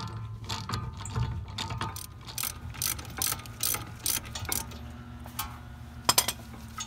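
Socket ratchet clicking in quick strokes, about three a second, as it unscrews the front brake caliper's large mounting bolt. Two sharp knocks sound near the end.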